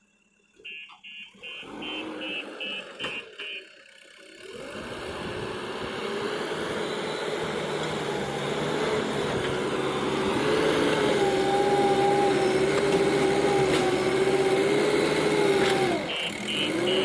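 Backhoe loader: a quick run of evenly spaced high beeps from its warning beeper, then its diesel engine building up and running hard under load with a steady, slightly wavering drone; the drone dips briefly near the end and the beeping starts again.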